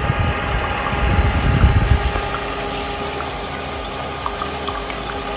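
Small 12-volt DC water pump running in a homemade air cooler, a steady hum with a thin whine.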